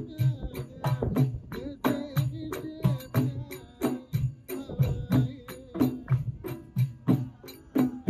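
Traditional Gulf folk music: a group of men singing together over a quick, steady beat of hand-struck frame drums.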